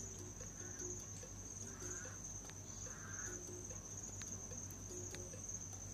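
Faint background noise during a pause in narration: a steady high-pitched tone over a low hum, with soft short chirps now and then.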